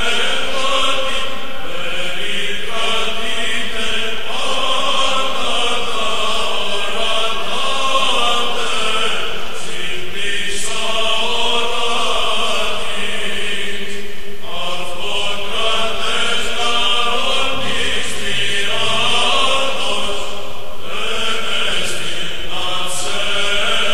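Chanted singing over music, in long wavering melodic phrases that break off briefly every few seconds.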